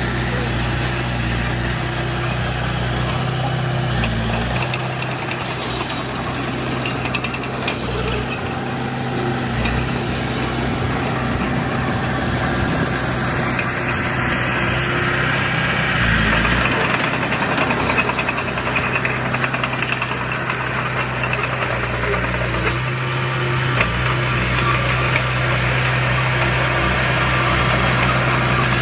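Diesel engine of heavy earthmoving equipment running steadily, its note shifting up and down a few times as the revs change.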